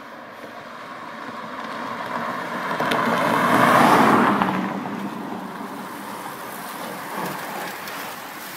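A car passes close by on a country road, its tyre and engine noise swelling to a peak about four seconds in and then fading. Afterwards a bunch of racing bicycles rolls past with a soft hiss of tyres.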